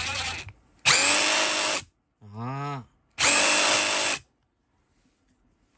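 DeWalt DCF887 20V XR impact driver spinning a DWACPRIR copper-pipe-cutter attachment with no pipe in it, so it runs freely without impacting: a softer short run at the start, then two full-speed bursts of about a second each at a steady pitch.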